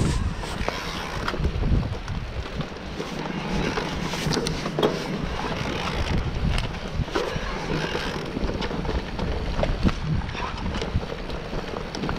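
Electric mountain bike rolling down a dirt forest trail, heard through a handlebar-mounted camera: a steady low rumble of wind on the microphone and tyres on dirt, with scattered knocks and rattles from the bike over the rough ground.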